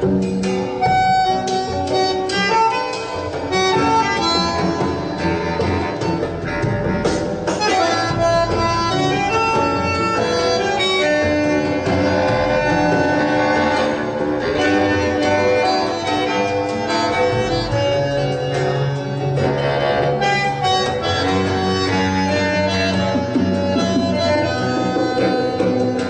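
Music played back on a turntable hi-fi demo system: an acoustic instrumental piece with plucked strings under a melody of held notes.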